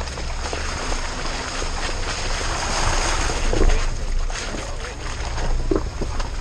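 Jeep Wrangler crawling slowly over a rocky dirt trail: a steady low engine rumble under the tyres crunching over rocks and leaves, with a few sharp knocks and wind noise on the side-mounted microphone.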